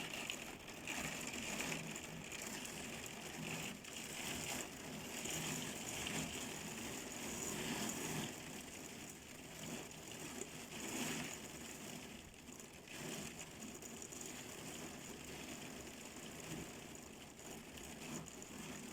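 Heavy rain falling steadily, swelling and easing in intensity from moment to moment.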